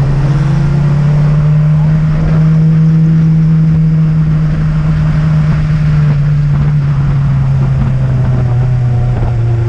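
Motorcycle engine running at a steady cruising speed, a low drone over wind rush on the microphone, its pitch dropping twice in the second half as the bike eases off for a bend.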